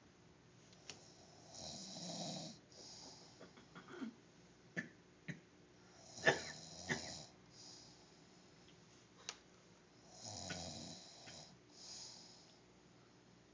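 A man snoring in his sleep: three snores about four seconds apart, each followed by a shorter hissing exhale. A few short sharp clicks fall between them.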